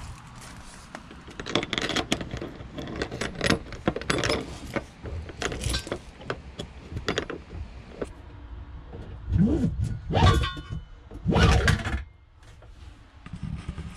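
Handling noise of a rubber gas filler hose and its metal fitting being worked through a plastic filler housing: scattered clicks, taps and rustles, with a couple of heavier bumps near the end.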